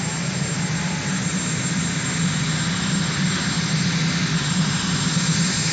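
Marine One helicopter's turbine engines running on the ground: a steady high whine over a constant heavy rumble.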